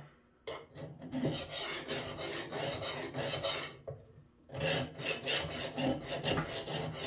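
Hand file rasping across the bit of a vintage Craftsman axe head in repeated strokes, with a short pause about four seconds in before the strokes resume. The file is sharp but bites slowly, because the axe steel is very hard.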